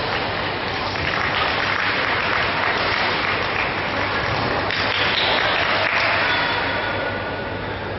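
Applause in a badminton hall, swelling about a second in and easing off near the end, with a few faint sharp ticks.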